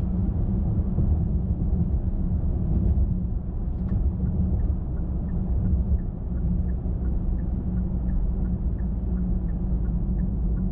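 Car driving along a highway: steady low rumble of tyres and engine. From about four and a half seconds in, a faint regular ticking comes in, about three ticks a second.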